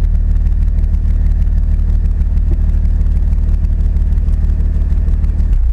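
Audi A4 3.0's engine idling steadily through its stock exhaust, heard close at the tailpipe as an even, low rumble. Near the end it begins to cut out.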